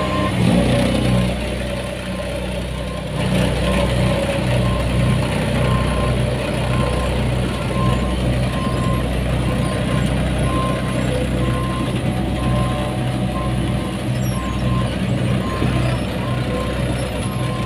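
Diesel engines of asphalt paving machinery, a paver and a tandem road roller, running steadily, with a backup alarm beeping about once a second.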